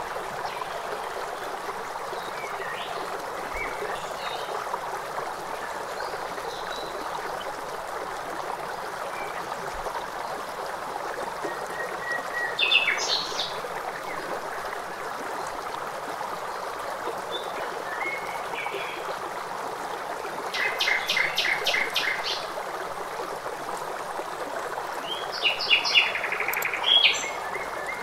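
Steady rush of flowing water with scattered bird chirps. A quick run of repeated notes comes about two-thirds of the way through, and a burst of chirps near the end.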